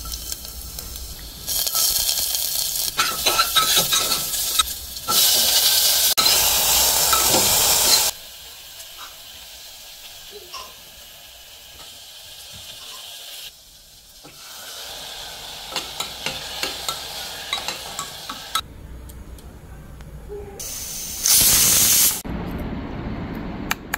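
Vegetables, rice and lentils frying in hot oil in a cooking pot, sizzling while a spoon stirs and scrapes with scattered clicks. The sizzling comes in separate stretches: loudest about five to eight seconds in and again briefly near the end, quieter in between.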